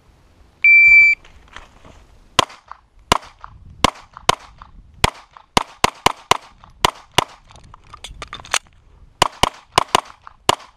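An electronic shot timer gives a single short high beep, then a Springfield XDm 5.25" 9mm pistol fires a rapid string of about twenty shots, many in quick pairs.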